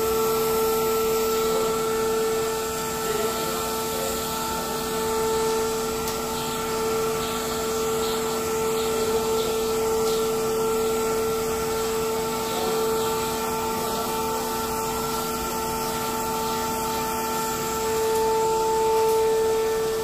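Vacuum cleaner running steadily with a constant whine over a rushing hiss, its hose end sucking dust from foam air-conditioner filter pads. It grows slightly louder near the end.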